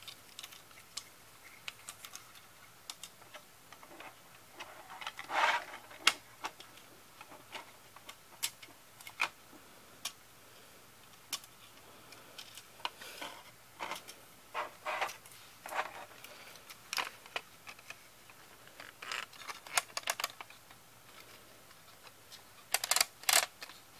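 Irregular plastic clicks, taps and short scrapes from hands handling an opened VHS cassette shell and its tape reels, coming in scattered clusters.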